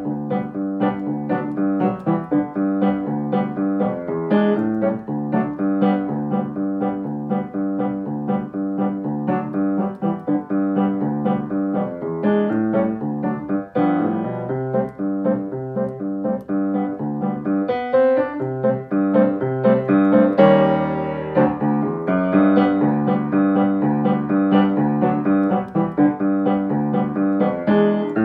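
Acoustic piano played with both hands: the accompaniment part of a short beginner piece, in a steady beat of repeated notes and chords under a melody. About two-thirds of the way through, one chord is held for a second or so before the playing goes on.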